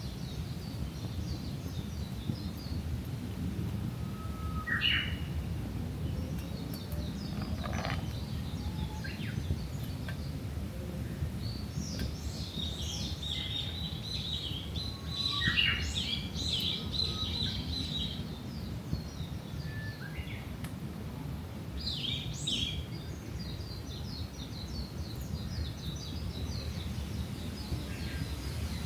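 Wild birds chirping and calling outdoors, with a busier stretch of twittering about halfway through and single sharp calls here and there, over a steady low background rumble.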